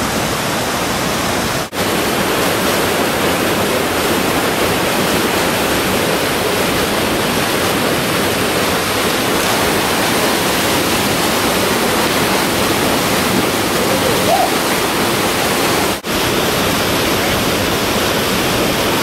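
Steady rush of river water pouring over rocks, briefly cut off twice, about two seconds in and near the end.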